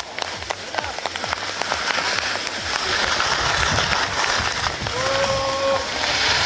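Spectators clapping and cheering as a young slalom skier comes down to the finish, the clapping growing louder after the first second or two. About five seconds in there is a short, steady held tone.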